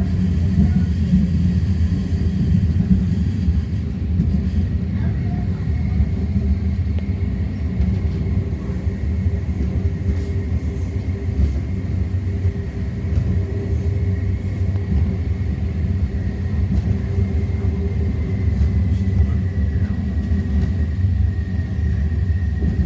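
Inside a moving O-Train light rail car: the steady low rumble of the car running along the track, with a thin high whine coming in about six seconds in and sliding slightly lower near the end.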